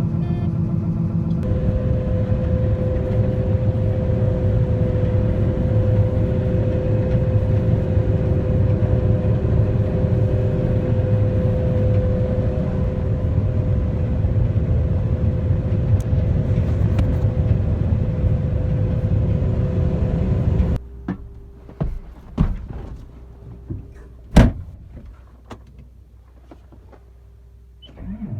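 Combine harvester running steadily under load with a constant whine, picking corn. About three-quarters of the way through, the sound cuts to a much quieter stretch with a few sharp clicks and knocks, one of them loud.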